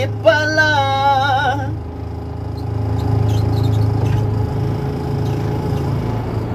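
Forklift engine running steadily as the truck is driven, a constant low hum heard from inside the cab. A singing voice is heard over it for the first second and a half, then stops.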